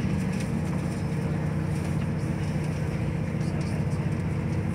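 Steady rumble of a moving diesel passenger train heard from inside the carriage: a low engine hum over the running noise of wheels on the track.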